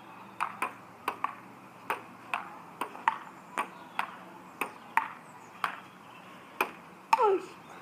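Table tennis rally: the plastic ball clicks back and forth between bats and the table top, about two hits a second. It ends with a louder hit near the end.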